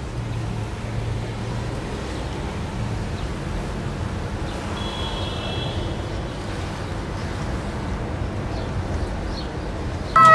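Steady road and engine noise heard from inside a moving car, a low even hum. At the very end a loud siren starts suddenly and rises in pitch.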